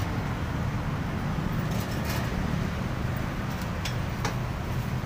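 Street ambience: a steady low rumble of traffic, with a few light clicks around two and four seconds in.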